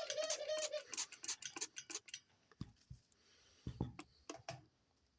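A dove bathing in a shallow water bowl, flicking its wings and splashing: a rapid patter of small splashes for about two seconds, then a few scattered ones. A brief squeak comes near the start.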